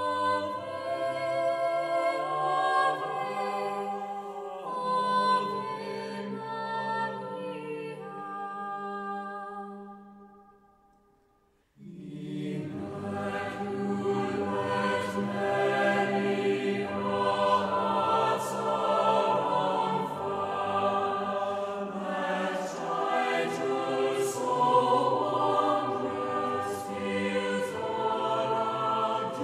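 Background music of a choir singing; it fades out about ten seconds in and a new choral passage starts about two seconds later.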